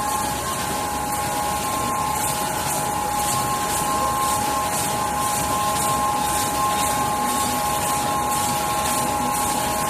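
Full-servo rotary tube screen printing machine running: a steady mechanical hum carrying two high steady tones, with short hiss-like pulses repeating about two to three times a second.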